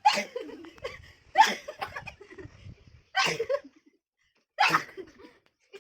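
A person sneezing four times, loud sharp sneezes about a second and a half apart.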